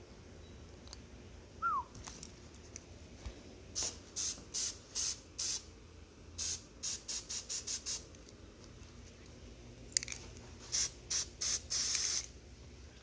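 Aerosol spray-paint can sprayed in many short hissing bursts, in three runs: a few about four seconds in, a quick string around seven seconds, and a last cluster near the end.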